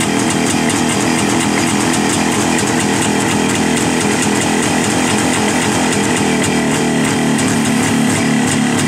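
A Jawa 350's two-stroke twin-cylinder engine idling steadily with a fast, even exhaust beat. It is running cold on the enricher (choke) just after starting.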